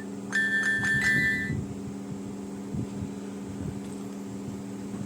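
A mini Casio keyboard plays a quick run of about four high, chime-like notes, ending about a second and a half in, followed by a steady low hum.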